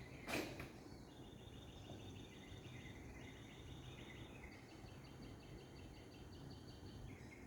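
A single short cough about a third of a second in, the loudest sound here. Behind it, from about a second in, a faint high chirping in rapid pulses carries on.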